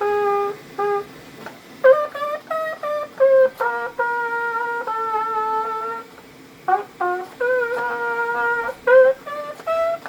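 3D-printed rectangle trumpet, with a PETG body and a metal mouthpiece, playing a melody. It moves through a run of short notes with a few longer held ones, and breaks off briefly about six seconds in.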